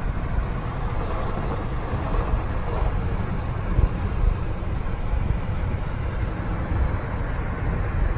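Steady low road and wind rumble heard inside a car's cabin at highway speed, with the windows closed.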